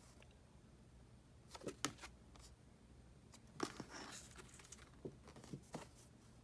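Faint rustling and light taps of large postcard-sized photo cards being picked up, swapped and laid down, in a few short clusters over low room tone.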